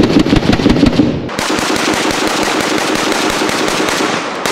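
Semi-automatic AK-47 rifle fired as fast as the trigger can be pulled: a rapid, unbroken string of loud shots, several a second, emptying a 30-round magazine. About a second in, the shots turn fainter and blur together with their echo off the water.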